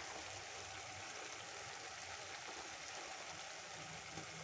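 Faint, steady sizzle of an onion-tomato masala cooking in a kadai, with ground spices just tipped on top.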